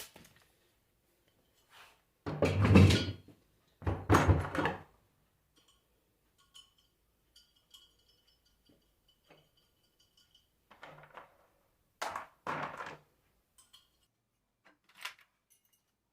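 Hard parts knocked about and set down on a workbench: two loud rattling clunks about two and a half and four seconds in, then a few lighter knocks later on.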